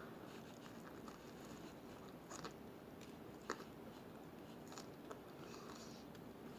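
Faint chewing of a Subway oven-roasted chicken sandwich, with a few soft mouth clicks, the clearest about three and a half seconds in.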